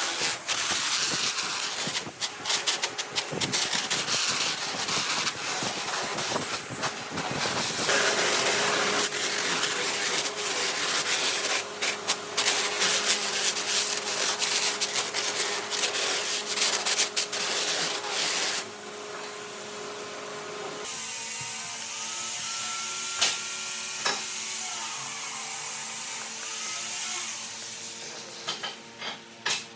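Power tools working wood: rough rubbing and scraping noise with many small knocks. About eight seconds in a steady motor hum joins it and runs until about twenty-one seconds, when the sound drops to quieter machine noise.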